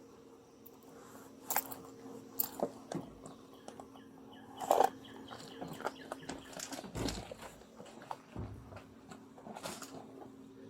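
Scattered clicks, rustles and knocks, the loudest a knock about halfway through, with a couple of low thuds after it, over a steady low electrical hum.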